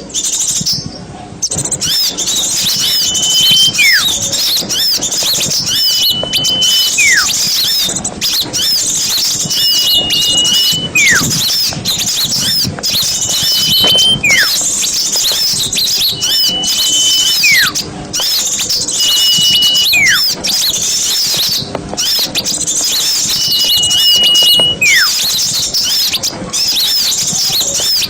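Small-bird lure call: a dense chorus of many small birds chirping and twittering high and fast. Every few seconds one clear whistle is held briefly and then followed by a long falling whistle, repeating like a loop.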